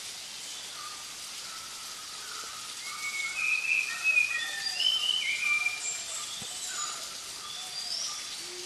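Several wild birds calling in forest, short clear whistled notes over a steady background hiss, busiest and loudest in the middle.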